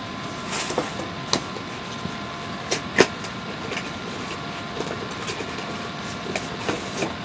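Packaging being handled: scattered light clicks and a brief rustle from a toy figure's cardboard box and plastic tray, over a steady room hum, with the sharpest click about three seconds in.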